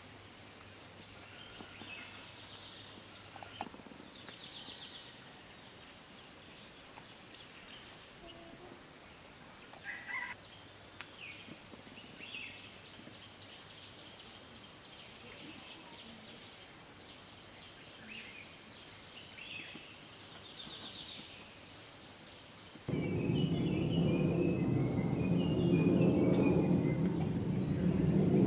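A steady, high insect drone in forest, with occasional short bird chirps. About 23 s in, a louder low rushing noise comes in suddenly.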